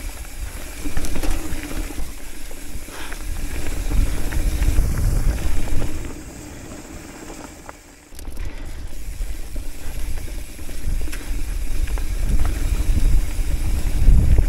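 Hardtail mountain bike running fast down a dirt and gravel trail: tyres rumbling over the ground, frame and drivetrain rattling in short clicks, and wind buffeting the microphone. The noise drops for about two seconds past the middle, then comes back suddenly.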